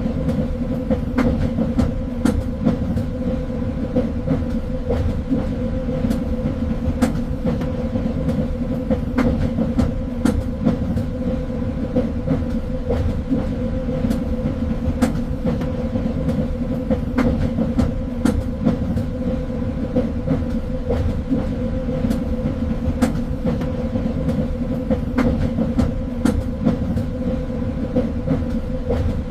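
Train running on rails: a steady low rumble with a constant hum, broken by irregular clicks and knocks from the wheels on the track.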